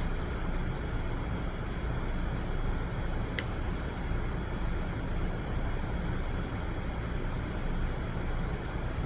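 Steady low rumbling background noise, with one brief high-pitched tick a little over three seconds in.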